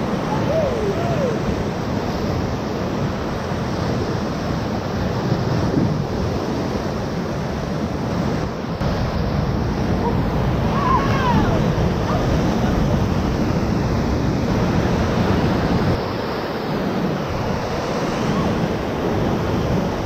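Whitewater rapids rushing and churning around a paddle raft: a loud, steady wash of water noise that swells a little about halfway through and eases off again a few seconds before the end.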